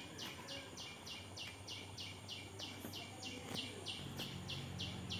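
Quiet, steady, rhythmic high-pitched chirping, about four short pulses a second, with a low steady hum coming in about four seconds in.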